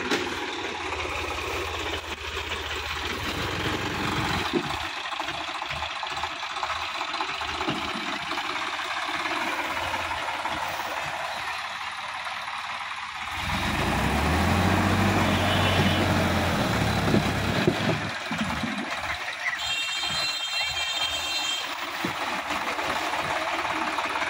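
Sonalika tractor's diesel engine running as the tractor pulls through a flooded, muddy paddy field. About halfway through it gets louder and deeper for four or five seconds as it takes load. Two brief sets of high steady tones come in the second half.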